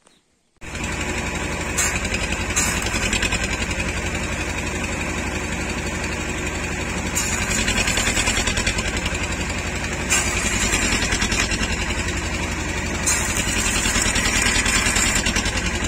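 Electric welding arc burning a seized bushing out of a tractor half-frame pivot bore: a steady crackling buzz that strikes up abruptly about half a second in, with a few louder pops along the way.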